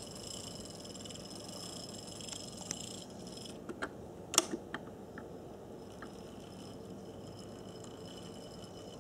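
Small HO scale Varney Docksider steam locomotive running on track, its electric motor giving a steady buzzing hum with a thin high whine over it for the first few seconds. A cluster of sharp clicks comes about four seconds in.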